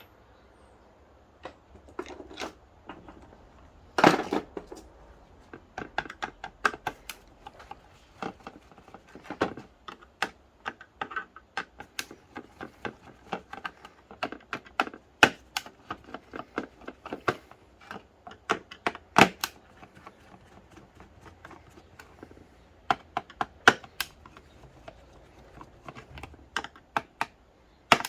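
An exercise bike's plastic control console being taken apart with a screwdriver: a long run of small irregular clicks and taps of the driver and plastic parts, with a few louder knocks.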